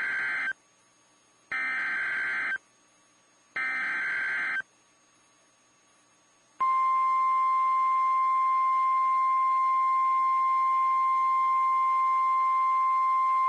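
Emergency Alert System SAME header: three one-second bursts of warbling digital data, each followed by about a second of silence. About six and a half seconds in, the steady 1050 Hz NOAA Weather Radio warning alarm tone starts and holds, signalling that a warning follows.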